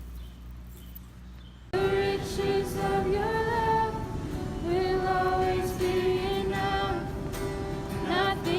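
A low, quiet hum for under two seconds, then music cuts in with long held sung notes.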